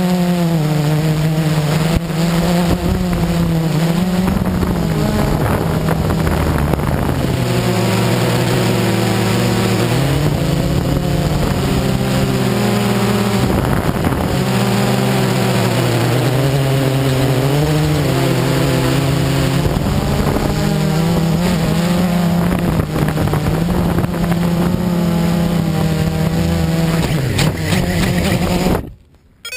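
Quadcopter motors and propellers buzzing right next to the camera, the pitch rising and falling as the throttle changes. Near the end the craft comes down onto gravel and the buzzing cuts off abruptly.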